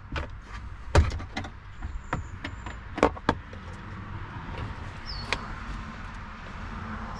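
Sharp clicks and knocks of plastic interior trim being pushed out by hand in a car, the loudest about a second in and more near three and five seconds, over a steady low rumble.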